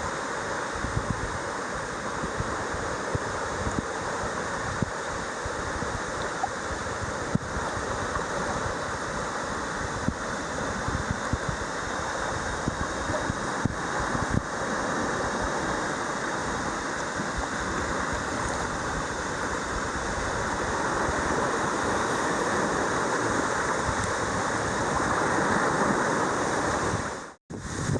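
Spring snowmelt waterfall pouring off a sea cliff into the sea: a steady rush of falling water, with wind buffeting the microphone. It grows a little louder in the later part and cuts out abruptly for an instant near the end.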